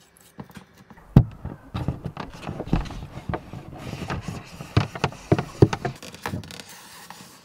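Handling noise of a thin cable being fed through a drilled hole in a wooden panel and pulled through foam insulation: irregular scuffs, rustles and taps, with a sharp knock about a second in and a cluster of sharp taps past the middle.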